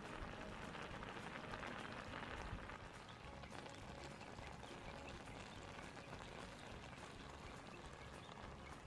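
Pan of penne and melting cheese simmering down, with faint sizzling and bubbling and small scattered crackles. It is a little louder in the first two or three seconds.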